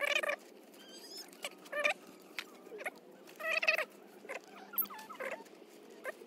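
Several short, high-pitched squeaky calls from an animal, a second or two apart, over a faint background hiss.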